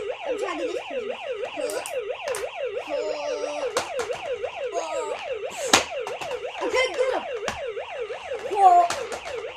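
Electronic siren of a battery-powered Hess toy truck, a fast yelp sweeping up and down about four times a second. A few sharp knocks sound over it.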